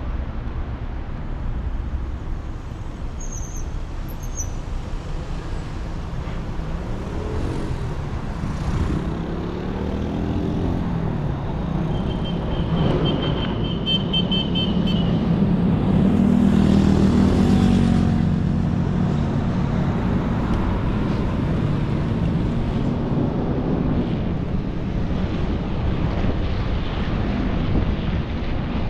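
Road traffic on a city avenue: a steady rumble of engines and tyres, with vehicles passing and the noise swelling to its loudest a little past the middle.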